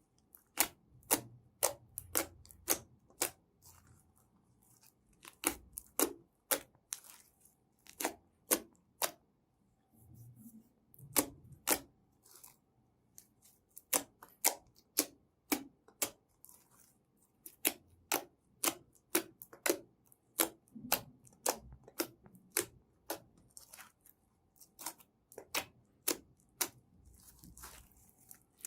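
Slime being squeezed and poked by hand, giving a run of sharp pops and clicks, about one or two a second in uneven clusters, with soft squishing between them.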